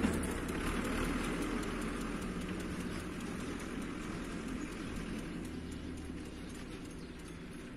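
Türk Fiat 70-56 diesel tractor running with its drum mower, fading steadily as it drives away, with a steady hiss over the engine.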